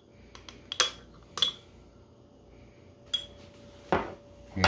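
Kitchen utensils clinking against a mixing bowl as baking powder is spooned into flour: about five separate sharp clinks spread over a few seconds. A faint steady hum runs underneath.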